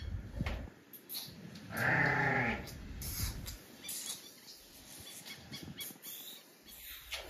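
Elephant calf drinking from a hand-held milk bottle, with short wet sucking clicks at the teat, and one short bleat-like call about two seconds in.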